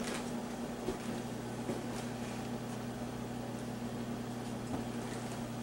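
Steady low electrical hum over a faint hiss, with a few faint ticks scattered through it.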